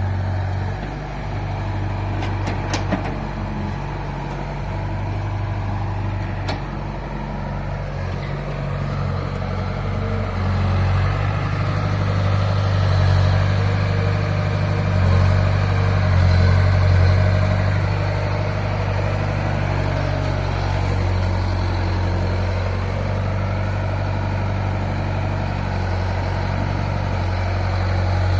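Excavator's diesel engine running steadily, growing louder for several seconds in the middle as it works under load.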